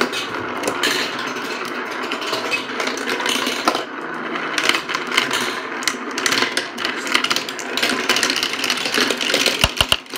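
Many marbles rolling and clattering down a marble run: a dense, continuous rattle of small clicks, with a few heavier knocks near the end.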